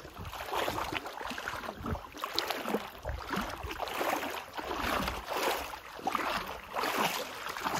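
Water splashing and sloshing in repeated surges as a person swims, with some wind on the microphone.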